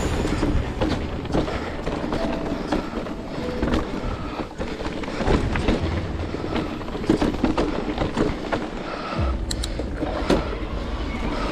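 Electric mountain bike riding over a rough trail: a dense rattling clatter of knocks and clicks from the bike over a steady rolling rumble of tyres on dirt and rock, the rumble growing heavier near the end.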